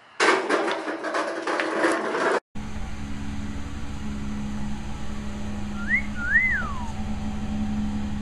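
A human wolf whistle about six seconds in: a short rising note, then a longer note that rises and falls. It sounds over a steady low hum, and it follows a couple of seconds of rushing noise that cuts off abruptly.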